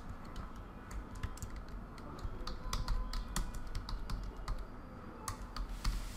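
Typing on a computer keyboard: a run of irregularly spaced key clicks as a short text label is typed in.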